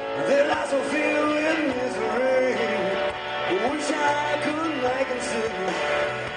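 Live blues-rock band playing an instrumental passage: an electric guitar lead with bent, sliding notes over bass guitar and a drum kit, with a few cymbal hits.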